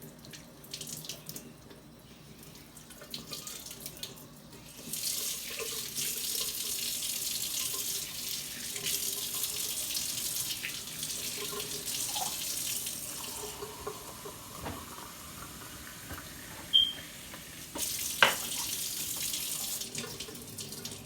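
Kitchen tap running into the sink, turned on about five seconds in and running steadily, then lighter, then strong again briefly near the end. A few knocks and a sharp clink come between.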